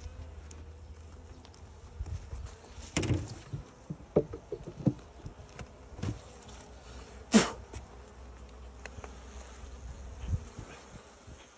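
Honeybees buzzing over an open hive full of bees, with several sharp knocks and clicks from the hive being handled, the loudest about seven seconds in.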